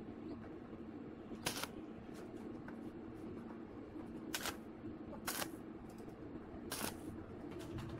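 Four sharp metallic clicks, spaced one to three seconds apart, from a square steel tubing frame being handled on a steel welding table. A steady low workshop hum runs underneath.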